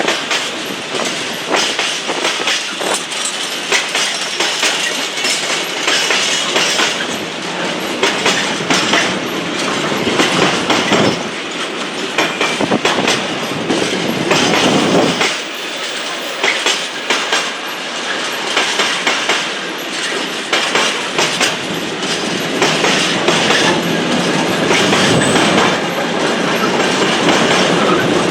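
A train rolling past on the rails, its wheels clicking and clattering steadily over the rail joints without a break.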